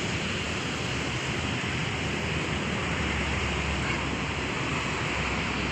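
Steady outdoor background noise: a continuous low rumble and hiss with no distinct events standing out.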